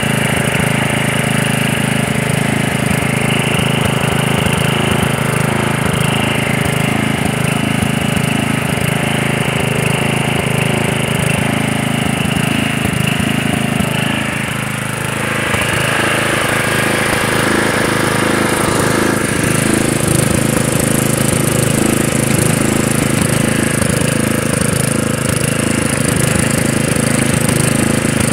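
Murray lawn mower engine running steadily under load while it picks up and bags leaves. About halfway the sound dips briefly, then a hissier rush comes up over the engine.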